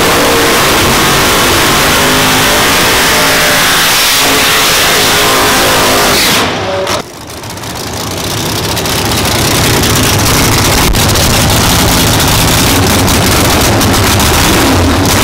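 Drag-racing 1969 Camaro's V8 engine running loud and revving. The sound drops off sharply about seven seconds in, then builds back up over the next few seconds.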